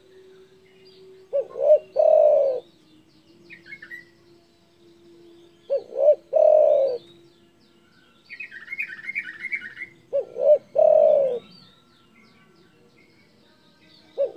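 Spotted dove cooing its song phrase, two short notes then a longer falling note, repeated three times about every four seconds. A smaller bird chirps and twitters faintly between the phrases, about eight seconds in.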